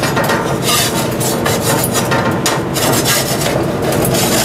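Rough rubbing and scraping in irregular strokes over a steady hiss, from gloved hands handling the pizza on the grill.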